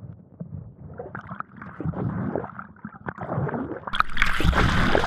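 Muffled underwater gurgling and bubbling as a person moves through harbour water. About four seconds in it gives way to loud splashing as the microphone breaks the surface.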